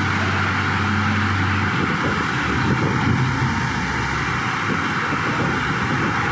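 Ashok Leyland 1618 tipper truck's diesel engine running as the truck pulls away over a dirt yard. A steady engine hum gives way about two seconds in to a rougher, uneven rumble as it drives off.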